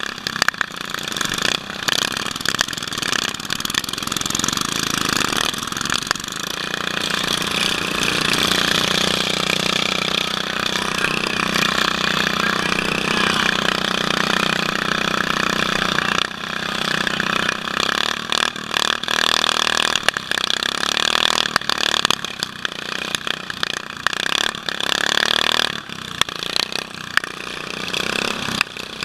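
Racing lawn tractor's small engine running throughout, mixed with many knocks and rattles as the mower bounces over rutted dirt, heard from a helmet camera.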